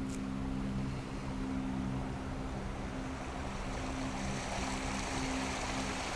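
Gondola cabin travelling along its cable: a steady rushing noise with a low, steady hum. The rushing grows a little brighter about four seconds in.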